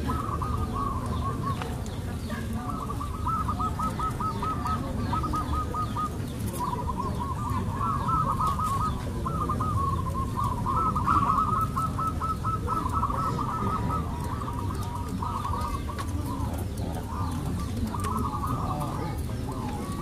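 Several zebra doves (perkutut) cooing together, their quick runs of repeated coo notes overlapping at about the same pitch with hardly a break, over a steady low background noise.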